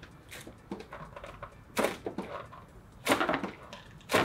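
A rubber balloon with a ping pong ball inside, squeezed and kneaded by hand, its rubber squeaking and rubbing in several short scrapes, the loudest cluster about three seconds in.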